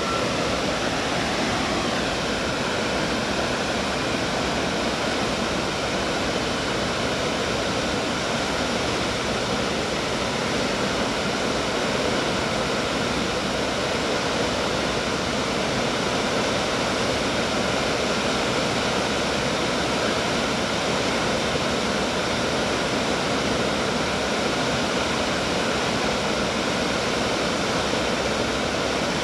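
Steady rushing of water pouring over a wide, low river dam and running over the rocks below it.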